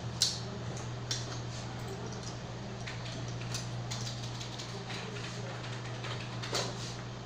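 Scattered small clicks and taps of printer parts being handled during disassembly, the sharpest just after the start and another near the end, over a steady low hum.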